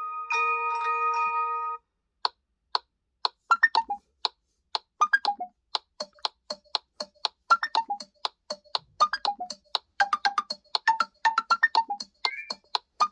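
Google Pixel 7a ringtones playing. A ringtone of held, chiming tones stops about two seconds in. After a short gap another starts: a quick run of short plucked notes at changing pitches.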